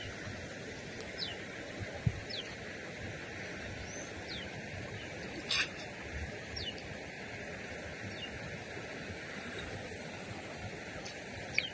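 Small birds chirping outdoors: short, falling calls repeated every second or two over steady background noise, with a brief click or two.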